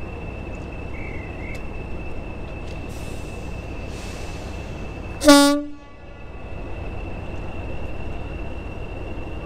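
A Class 40 diesel-electric locomotive running with a low engine rumble and its high, steady turbocharger whistle, then one short blast on its horn about five seconds in.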